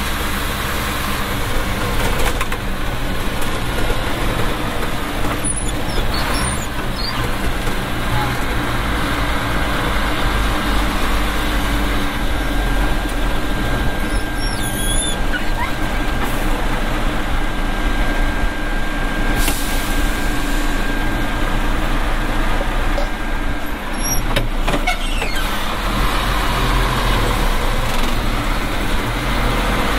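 Nissan Diesel PF6TB diesel engine of a Tadano GT550E truck crane running steadily under way, heard from inside the cab with road and traffic noise coming through the partly open side window.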